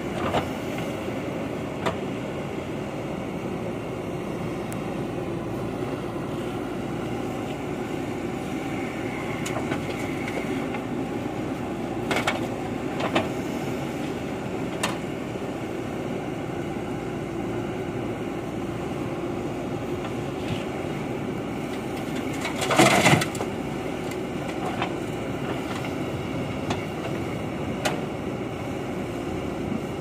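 JCB 3DX backhoe loader's diesel engine running steadily under load while it loads gravel into a steel tractor trolley. A few sharp knocks sound along the way, and a louder burst of clatter of about half a second comes roughly two-thirds of the way through.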